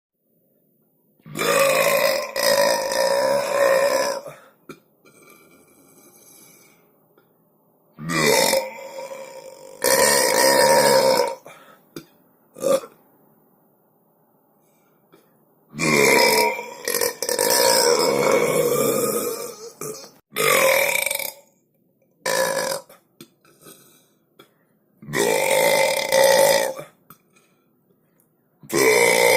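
A series of loud, long human belches, one after another with short pauses between them; several are drawn out for two to four seconds, while a few are short.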